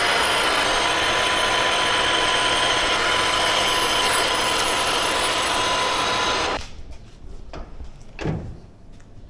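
Metal lathe turning down a 316 stainless steel tube: a steady, loud screech of the tool cutting the metal over the running machine, which stops abruptly about six and a half seconds in. A few light clicks and one dull knock follow near the end.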